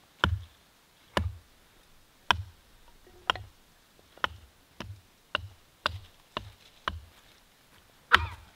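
Short stick of wood struck repeatedly by a child, sharp wooden knocks. There are about eleven, at first roughly one a second, then nearer two a second midway, with the loudest one near the end.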